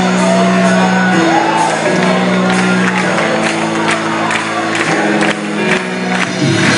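Rock band playing live in a concert hall, heard from the audience: long held chords changing every second or so, with drum and cymbal hits growing busier in the second half. Crowd whooping and shouting over the music.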